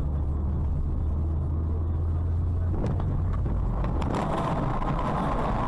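Car engine and road noise heard from inside a moving car, a steady low hum. About three seconds in come a few sharp knocks, and after that a harsher, rattling noise takes over.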